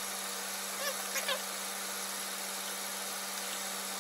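Steady low hum over a faint hiss, with a couple of small brief sounds about a second in.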